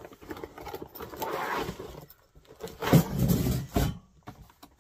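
Unboxing a plastic-wrapped wire folding grill: cardboard and plastic rustling and sliding for about a second, then a louder metallic rattle and thump about three seconds in as the grill is handled and set down.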